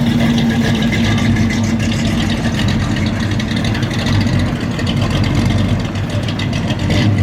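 A muscle car's V8 engine running at a steady idle.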